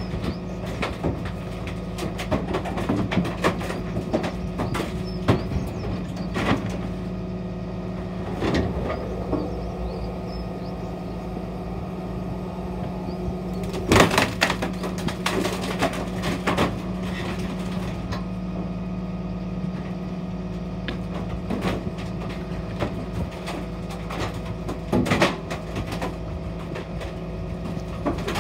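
Dennis Phoenix refuse truck running steadily while its rear compactor packs a load, with repeated sharp cracks and snaps of timber slats breaking under the packer. The loudest crack comes about halfway through, and another cluster comes near the end.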